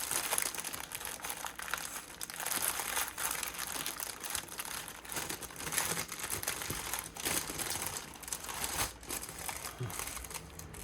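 Small plastic bags of diamond-painting drills crinkling and rustling as they are handled and sorted through by hand.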